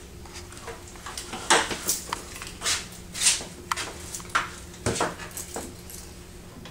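Irregular metallic clicks, clinks and short scrapes of mounting hardware being handled while a small sensor housing is remounted on a wall, over a faint steady hum. The clicks come in a busy run from about a second and a half in and thin out shortly before the end.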